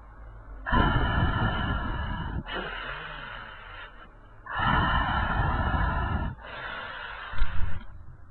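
Slow, heavy breathing close to the microphone: four long breaths, alternating louder and softer, with a couple of short sharp pops near the end.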